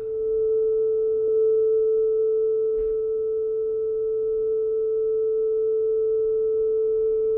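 A steady 440 Hz test tone played back from a speed test tape on a Sony TCK-611S cassette deck through an amplifier and loudspeaker. It holds at about 439.6 Hz, a sign that the tape speed is correct with the new belt fitted.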